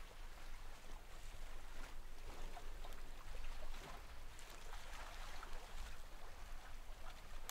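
Faint steady hiss of background noise with a low hum beneath it and a few soft ticks.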